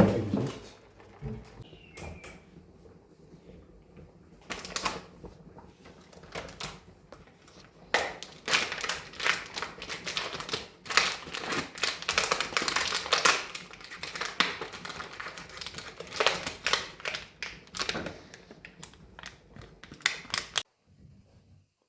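Kitchen cooking noise: a long run of rapid clicks and knocks from utensils, sparse at first and densest in the middle, then stopping abruptly near the end.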